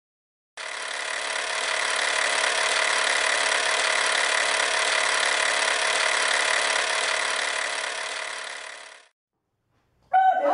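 A steady, dense mechanical buzz starts abruptly and holds evenly for about eight seconds, then fades out.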